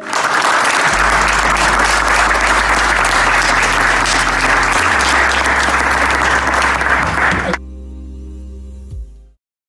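Audience applauding, with soft background music underneath. The applause cuts off abruptly about three-quarters of the way in, leaving the music alone, which then fades out near the end.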